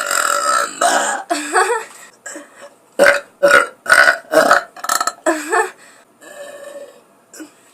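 A girl burping loudly over and over. One long burp at the start is followed by a shorter one. About three seconds in comes a quick run of seven or eight short burps.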